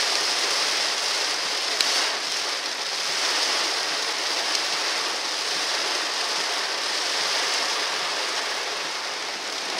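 Heavy tropical-storm rain falling on a car's roof and windshield, heard from inside the cabin as a steady hiss, with one faint tick about two seconds in.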